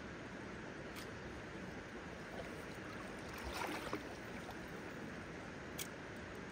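Steady rush of a shallow river flowing. About halfway through, a brief splash as a wader steps through the water, with two short clicks, one early and one near the end.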